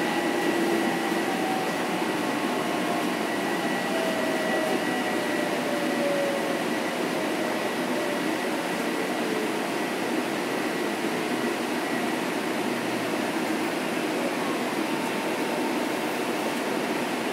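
Ride noise inside a Metro-North M7 electric multiple unit: steady rumble and hiss of the car rolling, with the whine of its Mitsubishi IGBT inverters and AC traction motors gliding down in pitch over the first several seconds as the train slows.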